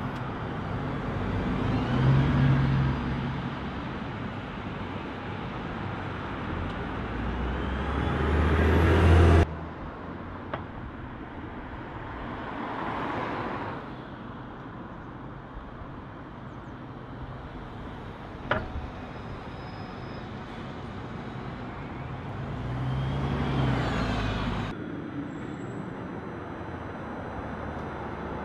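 City buses driving past one after another, each rising in engine and tyre noise as it approaches and fading as it goes by. Two of the pass-bys cut off abruptly. A single sharp click comes about two-thirds of the way through.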